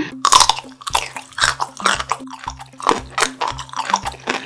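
Close-miked chewing of a bite of broccoli: a run of irregular crisp crunches, over background music with a repeating bass line.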